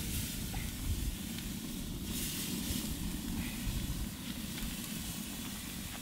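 Wagyu New York strip steaks sizzling as they are laid on the hot grill grate over the wood fire in an offset smoker's firebox, over a steady low rumble.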